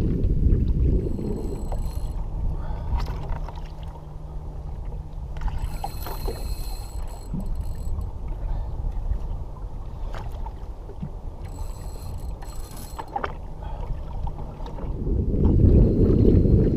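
Wind buffeting the microphone on an open jet ski at sea, heavy at the start and again near the end. In the quieter middle come light clicks and two short high-pitched whirs.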